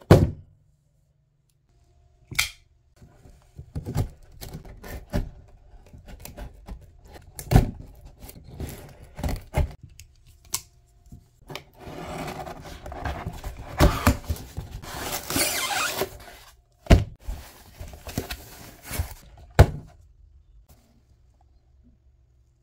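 Cardboard headlamp packaging handled and opened by hand: scattered taps and knocks, then several seconds of scraping and rustling as the box slides out of its torn cardboard sleeve, and two sharp knocks near the end. A brief loud burst at the very start.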